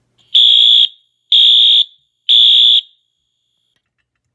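Fire alarm sounder going off during a walk test after a manual pull station is pulled: three loud, half-second blasts of one high tone, a second apart, in the temporal-three evacuation pattern.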